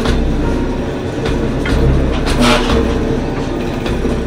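Freight train of loaded limestone hopper wagons rolling past close by: a steady low rumble with sharp wheel clacks over the rail joints about once or twice a second.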